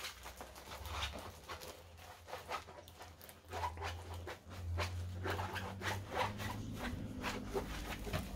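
Plastic packaging of a diamond-painting kit being handled and opened: a quick, irregular run of short rustles and scrapes.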